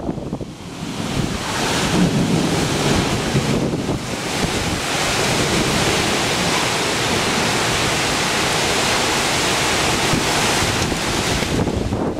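Strong storm wind blowing hard past the microphone, with a rumbling buffet on the mic. The gust swells about a second and a half in and holds steady until it drops back near the end.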